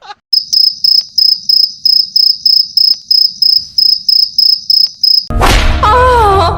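Cricket chirping sound effect, about four high chirps a second, steady for about five seconds. Near the end it is cut off by a loud, harsh burst of noise with a wavering tone in it, which stops abruptly.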